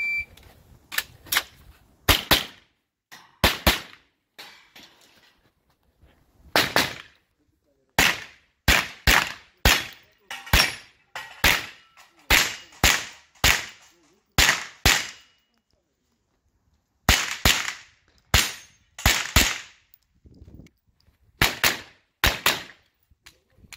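Semi-automatic carbine firing a string of sharp shots, mostly in quick pairs and short groups with pauses between as the shooter moves between positions. It opens with the shot timer's short start beep.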